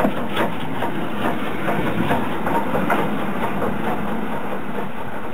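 Steam train running: BR Standard Class 4MT tank locomotive 80105 beats evenly, about two to three a second. The beats fade over the first three seconds into a steady running rumble.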